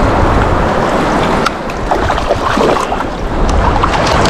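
Steady wind buffeting the microphone over lapping surf, with short sharp splashes from about a second and a half in as a hooked speckled trout thrashes at the surface.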